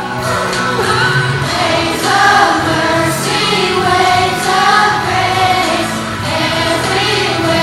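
A group of voices singing a song over instrumental backing.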